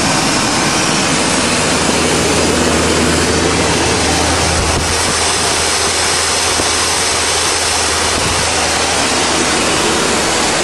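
1990 Chevrolet 350 V8 with throttle-body injection running steadily at held, slightly raised revs, burning the diesel mistakenly put in its tank out through the fuel system. The engine sounds good and even, with a steady low drone.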